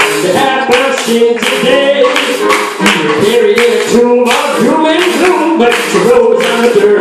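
A song: voices singing over music with a steady clapping beat.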